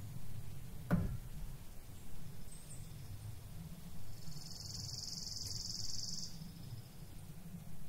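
Outdoor ambience with a steady low rumble, a deep thump with a quickly falling pitch about a second in, and a high insect buzz lasting about two seconds in the middle.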